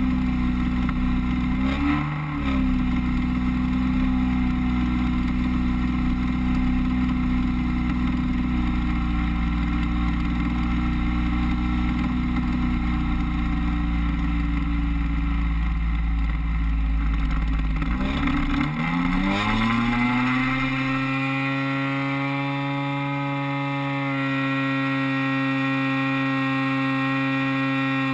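Onboard sound of an RC DHC-2 Beaver floatplane's DLE-30 single-cylinder two-stroke gas engine running at a steady throttle, with a low rumble from the floats on the water. About 19 seconds in the engine dips, then rises in pitch to full throttle for the takeoff, and the rumble dies away as the floats leave the water; the throttle eases back right at the end.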